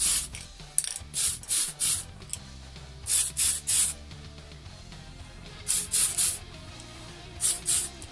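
Aerosol spray paint can hissing in short bursts, fired in quick groups of two to four, a couple of seconds apart, as a coat of paint goes onto an RC car body shell.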